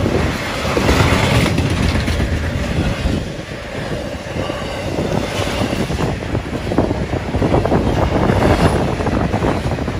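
Intermodal freight train cars rolling past close by: a steady rumble and clatter of steel wheels on the rails.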